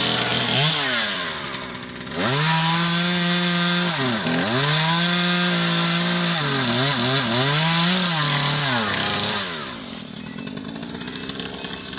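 Two-stroke chainsaw held at full throttle while a climber cuts limbs, its pitch dipping and recovering a few times, then dropping back to idle near the end.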